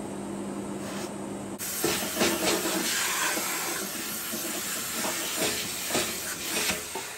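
Bench polishing motor running with a steady hum. About one and a half seconds in, the gold-capped watch case is pressed against the spinning rouge mop, and a louder hissing rub with irregular scrapes takes over.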